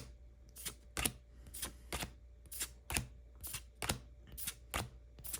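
Pokémon trading cards being flicked one at a time from the front of a freshly opened pack's stack to the back, a short snap or click about three times a second.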